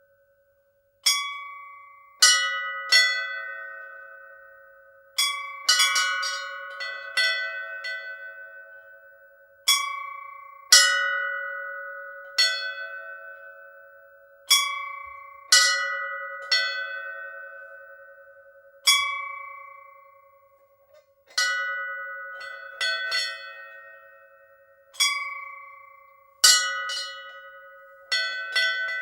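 Hindu temple bells struck irregularly, about one to two strikes a second, sometimes two close together, each strike ringing out with several clear tones that fade slowly over a steady lower hum.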